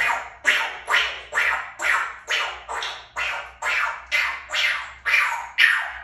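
African grey parrot mimicking gunshots: a rapid, even string of about thirteen sharp bangs, a little over two a second, each starting abruptly and trailing off.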